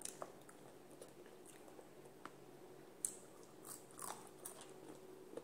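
Faint close-up eating sounds: a person chewing food, with scattered small crunches and mouth clicks.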